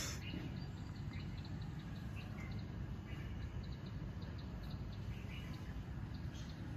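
Outdoor ambience: a steady low rumble with faint, scattered chirps of small birds, and a single click at the very start.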